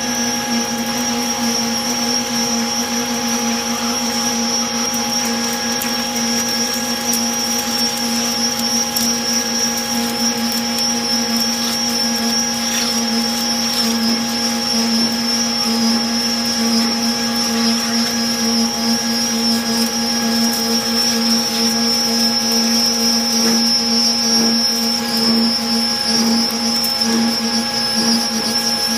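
Manual lathe running under load while a carbide form tool cuts a ring-joint groove into Inconel: a steady machine hum with a steady high-pitched whine on top.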